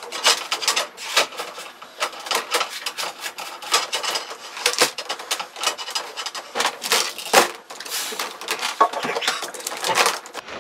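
Quarter-inch nylon tubing being pulled through a run behind wooden cabinetry: a continuous, irregular run of scraping, rubbing and clicking as the tubing drags against edges and the coil unwinds.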